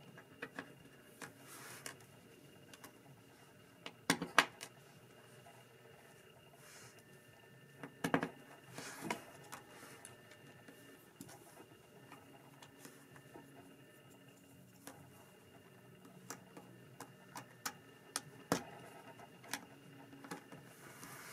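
Plastic Lego bricks being handled and pressed together on a tabletop: scattered light clicks, with a few sharp snaps about four seconds in, about eight seconds in and again later. A faint steady high tone runs underneath.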